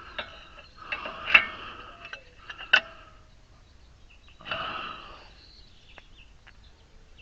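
Wrench and cheater bar working on the hub bolts: two spells of metal scraping and rustling, with two sharp metal clicks about a second and a half apart.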